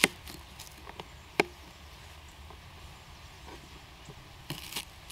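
Knife chopping an onion into big chunks: two sharp strikes, one at the start and one about a second and a half in, with a few fainter taps, and a brief rustle near the end.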